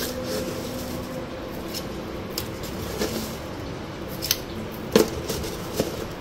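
Sharp metallic clicks and clinks of kitchen utensils, about half a dozen spread apart, the loudest about five seconds in, over a faint steady hum.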